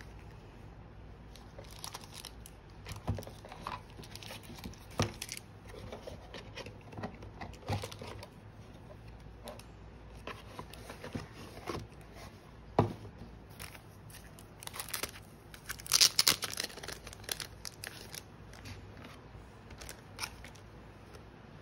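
Plastic photocard sleeves crinkling and rustling as they are handled, with scattered clicks and taps of cards; the loudest, densest crinkling comes about 16 seconds in.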